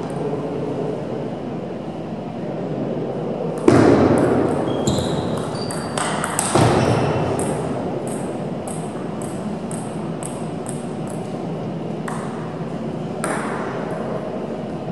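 Table tennis ball clicking in a hall, about two light pings a second over several seconds. This is a ball being bounced between points. A loud burst of noise comes about four seconds in, just before the clicks, and a few more ball hits are heard near the end as play resumes.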